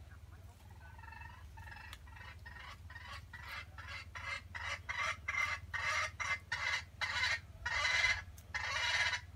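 Junglefowl calling: a run of short clucks that grows faster and louder, ending in two longer, loud calls.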